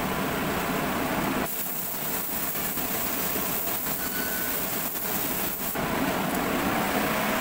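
A steady rushing hiss of air, which drops away about a second and a half in. A quieter stretch of light knocks and taps follows, from the panel being handled, and the hiss comes back about six seconds in.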